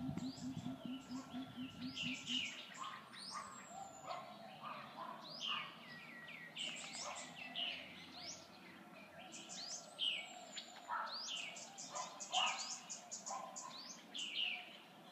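Several birds chirping and singing, a busy, overlapping stream of short, quick falling notes. For the first couple of seconds a low pulsing hum sits underneath, then stops.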